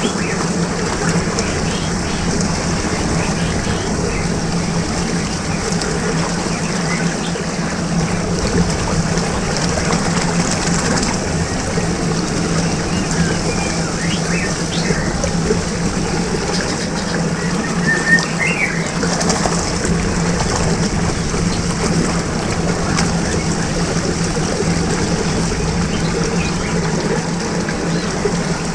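Steady churning water of a whirlpool with a low, steady hum under it, and short bird chirps now and then.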